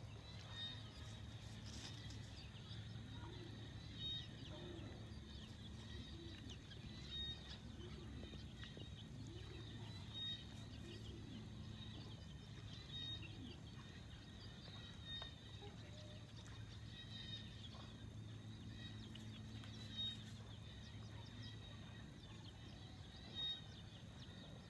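Faint clucking of free-ranging chickens, soft calls coming about once a second through the first half, with a short high chirp every few seconds, over a steady low hum.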